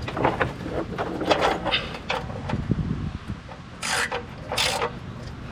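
Socket wrench ratcheting in short rasping strokes as the oil drain plug is tightened into the pan, with two louder rasps near the end.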